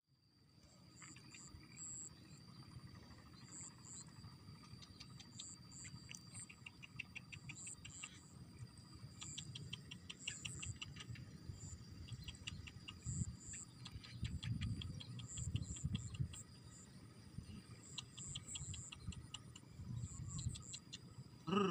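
Insect chorus, cricket-like: trains of rapid pulsed chirps, repeated short high chirps and a steady high whine, over patchy low rumble. A brief louder sound comes right at the end.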